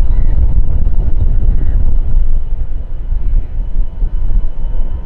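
Loud, deep rumble of an Airbus A320 jet airliner's engines as it comes in to land, with faint steady engine tones over the low roar.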